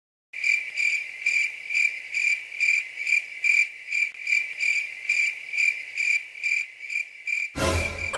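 Cricket chirping steadily, about two high chirps a second. A short loud burst comes in near the end.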